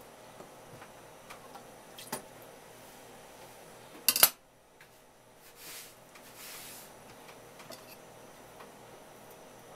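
Kitchen handling sounds at a cutting board: scattered light taps, then a brief sharp clatter of metal utensils about four seconds in, followed by two soft brushing sounds.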